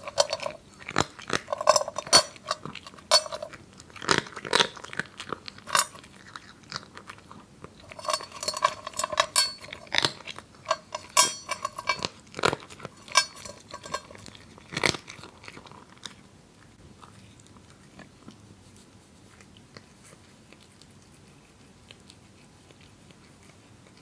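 A cat crunching dry kibble: sharp, irregular crunches and clicks that thin out after about fifteen seconds to faint, occasional clicks.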